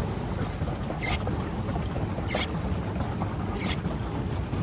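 Pedal boat under way on calm water: a steady low churning with a short high swish repeating about every 1.3 seconds, an even rhythm that matches pedalling.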